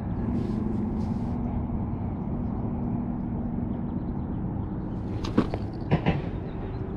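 A steady low motor hum, fading a little after about four seconds, with two or three sharp knocks near the end.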